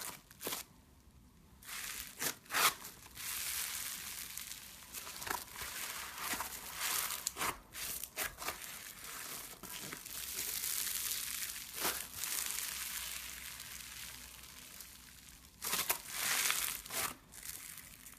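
Crunchy slime being squeezed and worked, giving a dense crackling and crunching broken by sharp pops.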